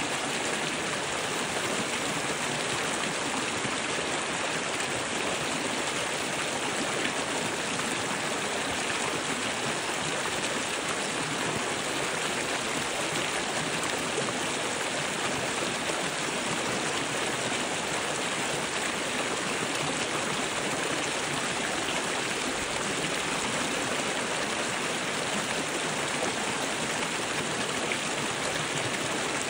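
A shallow, fast stream rushing over and around boulders: a steady, even rush of water with no change.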